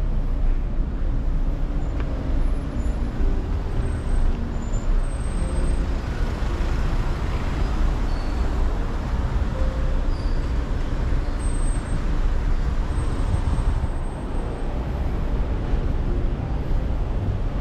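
Road traffic on a city street: a steady rumble of cars and buses passing, heaviest in the low end.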